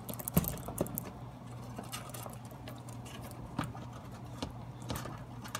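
Fingers rubbing and tapping on the plastic lens of a Scott SCBA face piece while spreading dish soap over it: irregular light ticks and soft rubbing. A steady low hum runs underneath.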